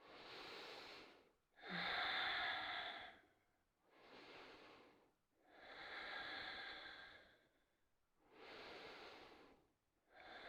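A woman's slow, deep breathing close to the microphone: about three full breaths in and out, each breath a soft rush lasting a second or so, held in a yoga pose.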